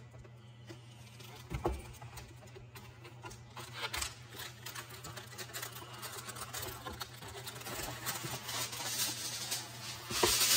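Aluminium foil being unrolled and pulled out of its box: scattered crinkling and rustling that builds toward the end, over a faint steady low hum.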